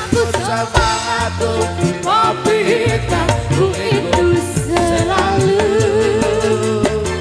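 Live band music with a woman singing: electric guitars, bass and drums in a reggae arrangement. A long, wavering note is held in the second half.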